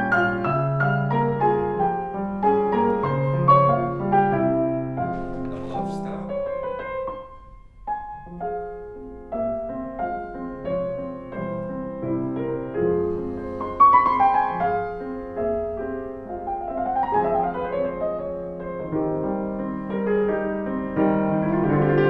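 Classical piano music played on two grand pianos: a student at a Steinway grand, joined partway through by a second grand piano, with a brief lull about eight seconds in.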